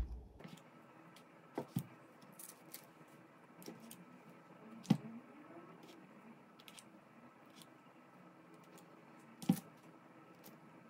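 A few light taps and clicks as a small round cutter is pressed through soft shortcrust dough rounds on a paper-lined baking tray and the centres are lifted out, the sharpest about 5 and 9.5 seconds in.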